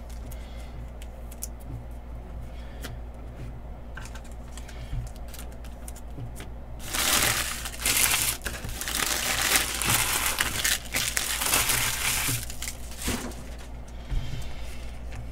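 Foil wrapper of a Panini Prizm football hobby pack crinkling loudly as it is opened by hand, for about six seconds starting some seven seconds in. Before that, only faint light taps of cards being handled.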